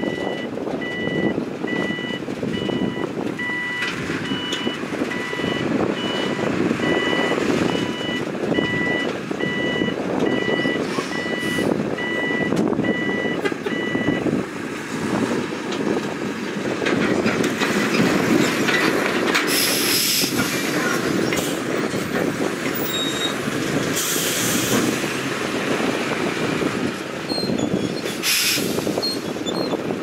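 Diesel dump trucks running with a reversing alarm beeping at about one and a half beeps a second; the beeping stops about halfway through. In the second half come several short bursts of hissing.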